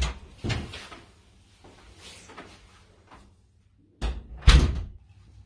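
Elevator's sliding metal doors knocking and rattling as they work: knocks at the start and about half a second in, then two louder knocks about four seconds in.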